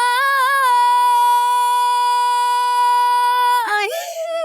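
A woman's singing voice with no instruments behind it, holding one long sustained note that wavers slightly at the start and then stays steady, before dropping and sliding up into a new phrase near the end.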